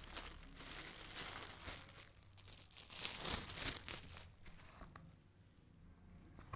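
Clear plastic bag crinkling and rustling as shoes are handled and pulled out of it, in two bouts over the first four seconds, then dying down to faint handling sounds.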